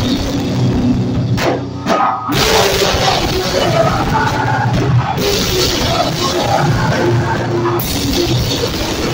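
Live heavy rock band playing loud, with distorted electric guitar and a drum kit. The band drops out briefly about two seconds in and then crashes back in.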